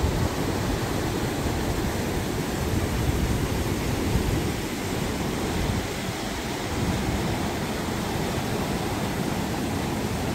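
River water rushing, a steady, deep rush with no break.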